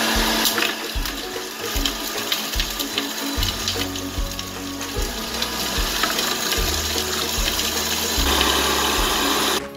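Panasonic electric food processor running, its blade grinding chopped lemongrass and shallots into a wet paste: a loud, steady rushing whirr over a low motor hum. It starts abruptly and stops shortly before the end.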